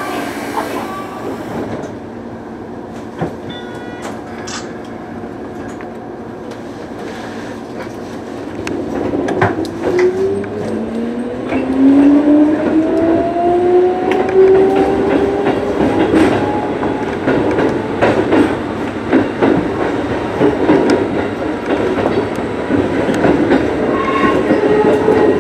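Keikyu 2000 series electric train heard from inside the front car as it pulls out and accelerates. A motor whine rises in pitch from about nine seconds in and levels off, with wheels knocking and clacking over the points.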